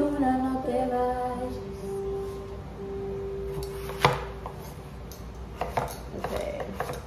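A kitchen knife cutting peeled potatoes on a cutting board: one sharp knock about four seconds in, then a run of lighter cuts near the end. Music with singing plays underneath in the first couple of seconds.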